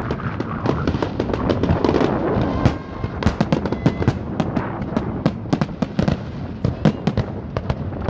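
Aerial fireworks bursting: a dense rumble of overlapping booms at first, then from about three seconds in a rapid string of sharp bangs and crackles, several a second.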